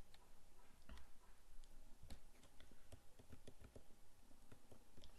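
Faint computer mouse clicks at irregular intervals.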